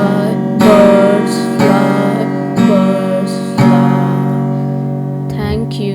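Background music of acoustic guitar strumming chords about once a second; the last chord, struck a little before the end, is left to ring and slowly fade.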